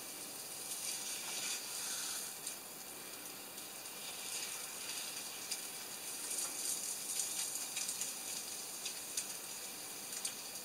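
Food sizzling in a hot frying pan, a steady hiss with occasional light clicks.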